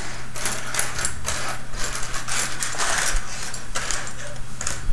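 Small plastic construction-kit pieces clattering and rattling together as they are rummaged through by hand, a quick uneven run of light clicks.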